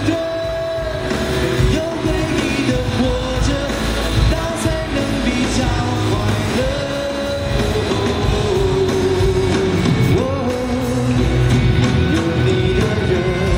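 Male singer singing live into a handheld microphone over a pop-rock band.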